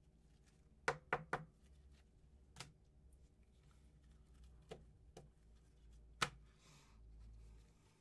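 Sharp taps and clicks of trading cards being handled at a table: three quick ones about a second in, then single taps spaced a second or two apart, and a soft rustle near the end.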